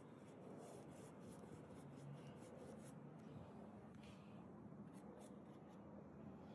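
Faint, irregular scratchy strokes of paint being worked onto a canvas.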